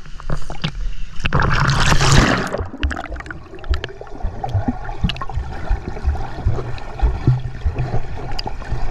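A splash about a second in as the microphone goes under the swimming-pool water, then muffled underwater gurgling with scattered low knocks.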